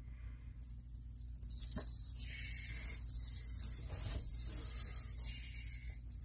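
Rattlesnake shaking its tail rattle in a steady high buzz, the defensive warning of a snake that is being handled. The buzz starts softly under a second in, grows louder a moment later and stops just before the end.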